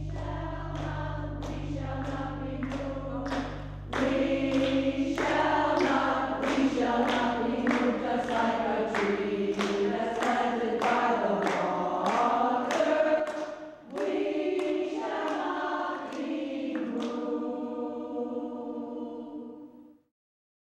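Choir singing, louder after a few seconds, with a brief break about two-thirds through, ending on a long held chord that fades out.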